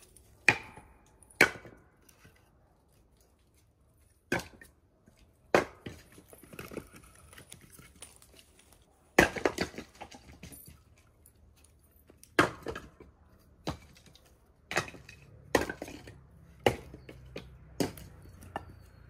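Split firewood logs thrown one by one onto a woodpile, each landing with a sharp wooden knock against the other logs. About ten knocks come at irregular intervals, a second to a few seconds apart, with lighter clatter of logs shifting in between.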